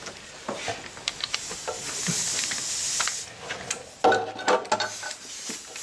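A steady hiss lasting about a second and a half, amid scattered sharp clicks and knocks.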